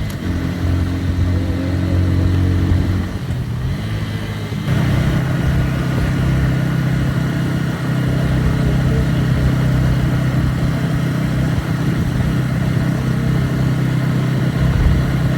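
Motorcycle engine running while riding, its note shifting about three seconds in and settling into a new, steadier note near five seconds, then holding steady.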